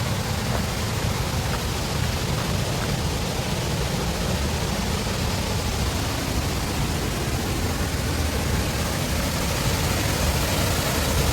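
Steady, unbroken rush of a waterfall running high after heavy rain.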